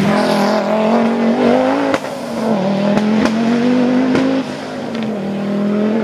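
Audi quattro rally car's turbocharged five-cylinder engine running hard. Its pitch climbs and drops back twice, about two seconds in and again past four seconds, as at gear changes, with a few sharp pops.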